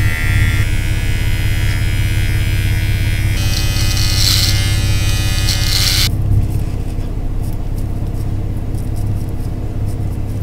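Cordless hair clippers buzzing as they trim the hairline around the ear, over a steady low hum. The clipper buzz cuts off abruptly about six seconds in, and the low hum carries on.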